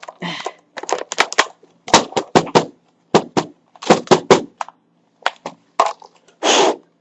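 Plastic keyboard held upside down and shaken hard: its keys clatter and rattle in several short bursts of clicks. Near the end comes a short rush of breath, like a puff blown into the keys.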